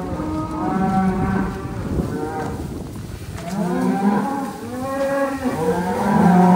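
Cattle mooing, several long calls overlapping and following one another, growing loudest near the end.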